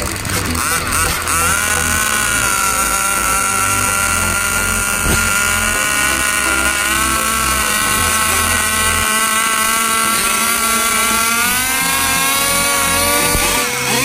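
Radio-controlled car's motor running at a steady high pitch: it climbs in the first second or so, holds with a slight waver, climbs again near the end and then drops off. A steady low beat of background music runs underneath.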